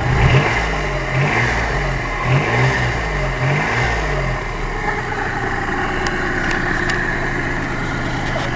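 A 1992 Geo Metro's freshly rebuilt 1.0-litre three-cylinder engine revved in several quick throttle blips, then settling back to a steady idle a little over four seconds in. It runs smoothly, sounding as it is supposed to.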